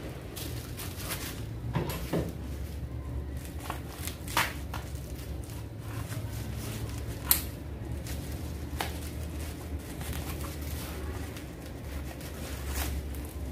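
Scissors snipping through plastic bubble-wrap packaging, with scattered crinkles and a few sharper snips, over a low steady hum.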